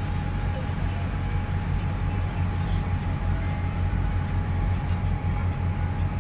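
Steady low rumble of a ferry's engines running, heard from the open deck, with wind buffeting the microphone and a faint steady whine over it.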